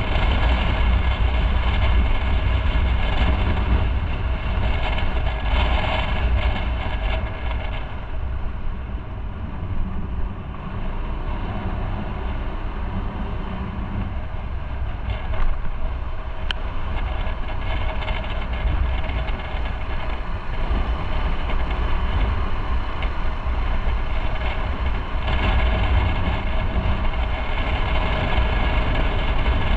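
Motorcycle on the move: engine running over a steady low rumble, quieter for a stretch in the middle and louder again near the end.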